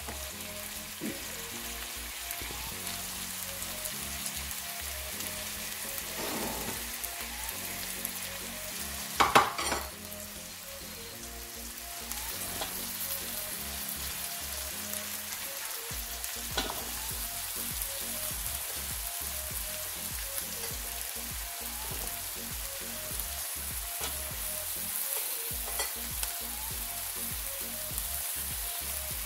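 Chopped vegetables frying in butter in a pan, giving a steady sizzle. About nine seconds in there is one loud knock, with fainter knocks a few seconds before and after.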